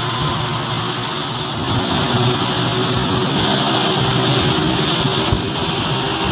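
Steady engine and road noise of a moving road vehicle, heard from inside while driving.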